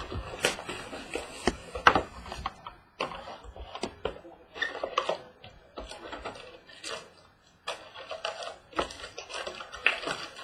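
Handling noise from opening a sealed box of trading cards: irregular clicks, crinkles and rustles of packaging, some sharper than others.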